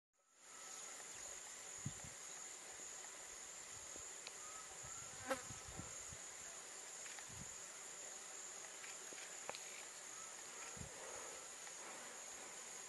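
Faint, steady high-pitched chirring of insects, with a few soft knocks and taps scattered through it, the loudest about five seconds in.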